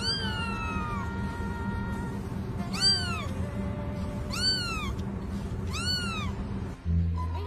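Kitten meowing: one longer meow falling in pitch, then three short meows that rise and fall, about a second and a half apart, over background music.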